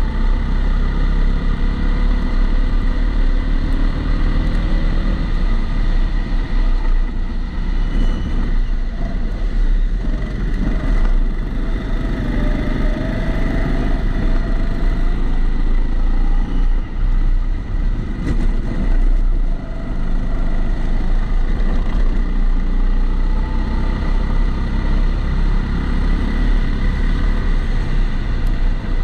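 Kombikart Eco go-kart engine running at speed, heard onboard, its note rising and falling as the kart accelerates and lifts for corners. A steady extra noise from the camera's enclosed housing runs underneath.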